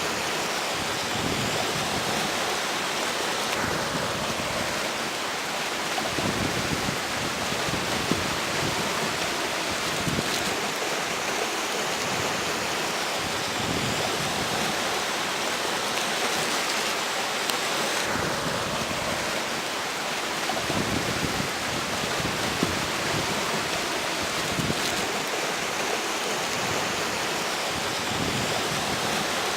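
Steady rush of a flowing river, with strong wind gusting across the bank and buffeting the microphone in uneven low rumbles.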